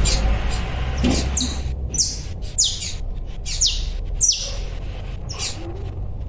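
Papa-capim (yellow-bellied seedeater) chick chirping: a string of short, sharp, falling high calls, about one every half second to second, over a low rumble.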